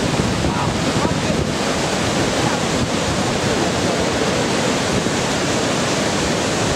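Steady, loud rush of Lower Yosemite Fall, heavy white water crashing onto the boulders at its base.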